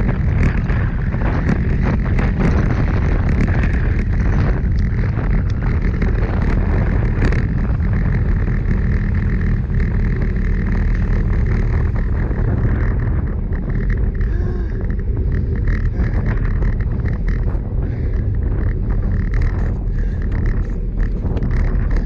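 Wind buffeting the microphone of a handlebar-mounted action camera on a road bike at speed, a steady low rumble mixed with tyre noise on asphalt. The higher part of the noise thins out about halfway through as the rider eases off and slows.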